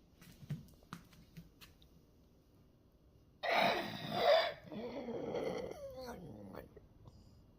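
A cat's stridor, a harsh noisy airway sound whose cause is unknown to the owner. A loud rasping burst comes about three and a half seconds in, followed by a wheezy, pitched rasp that falls in pitch and fades over about two seconds.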